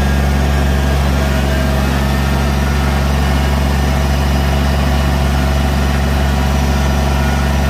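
Kubota BX2380 compact tractor's three-cylinder diesel engine running steadily at an even speed.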